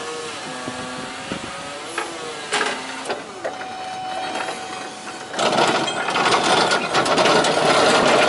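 Forklift lowering a heavy bandsaw to the ground with whining, squeaking tones and a few clicks. From about five seconds in, a loud rattling rumble starts as the saw is rolled on its casters across rough asphalt.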